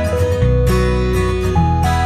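Background music: an instrumental track with a steady strummed rhythm and a simple melody of held notes.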